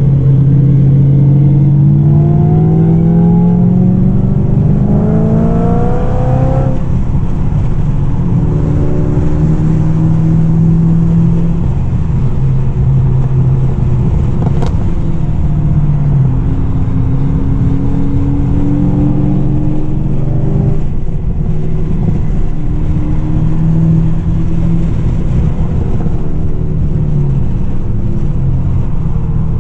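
Supercharged LSA V8 car driven hard on track: the engine note climbs steadily for several seconds under acceleration, drops sharply, then rises and falls again several times through the gears and corners.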